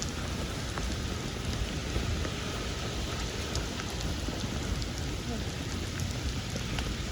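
Steady rain hiss with scattered sharp drop ticks, over a heavy low rumble.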